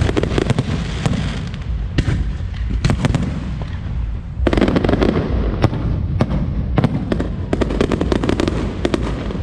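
Fireworks going off in rapid succession: a dense crackle of many sharp bangs, easing slightly about two seconds in before a loud fresh volley about four and a half seconds in.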